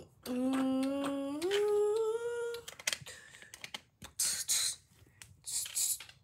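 A person hums a short tune of a few held notes, stepping up in pitch twice over about two and a half seconds. After that come a couple of brief scratchy noises as plastic Lego bricks are handled on the baseplate.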